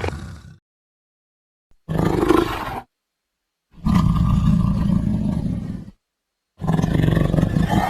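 A string of separate creature roar sound effects, each cut off into dead silence before the next: one fading out at the start, a short roar of about a second near the 2-second mark, a longer roar of about two seconds, and another starting near the end.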